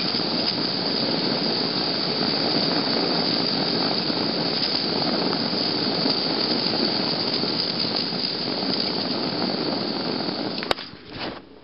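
Gas blowtorch flame hissing steadily as it heats a lump of gold to melt it. Near the end the hiss stops abruptly with a sharp click.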